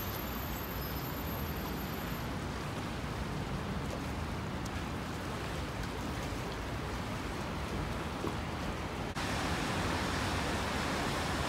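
Steady rushing outdoor noise with no distinct events, in which wind, flowing water and distant traffic cannot be told apart. It jumps abruptly to a louder, brighter hiss about nine seconds in.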